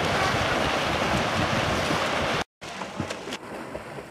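Water splashing from a large pack of swimmers doing front crawl, with wind noise on the microphone. It cuts off abruptly about two and a half seconds in and gives way to quieter lapping water with scattered splashes of a single swimmer's strokes.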